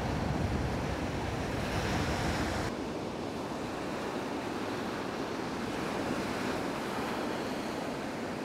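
Sea surf washing on the shore, with wind buffeting the microphone; the low wind rumble eases about three seconds in.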